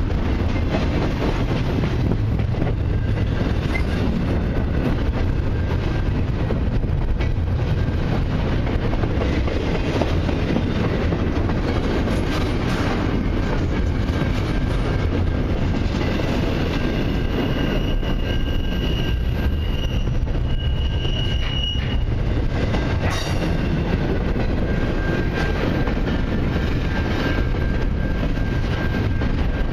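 Double-stack intermodal container well cars rolling past: a steady rumble of steel wheels on rail, with a thin, high wheel squeal that comes and goes in the second half.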